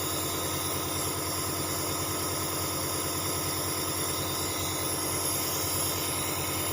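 Dr Trust compressor nebulizer's compressor running with a steady hum. Its noise level is moderate, which is normal for this machine.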